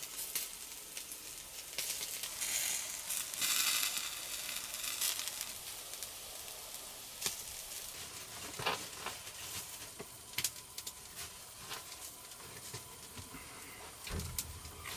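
Hissing and sizzling from an open wood fire's bed of glowing embers under a wire grill, loudest a couple of seconds in, with a few sharp crackles. A low thump near the end.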